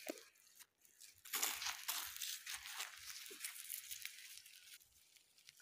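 Dry sticks and grass rustling and crunching as they are pushed by hand into a small open wood fire, with the fire crackling, strongest from about a second and a half in until near the end.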